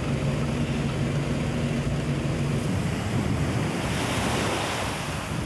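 Steady rushing noise of a car driving slowly along an unpaved street, with a low engine hum that stops about two and a half seconds in.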